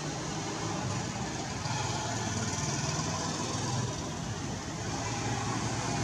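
Steady low rumble of distant road traffic with a faint hiss, unchanging throughout.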